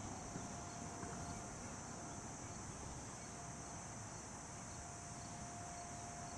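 Steady high-pitched insect drone, with a faint steady tone underneath.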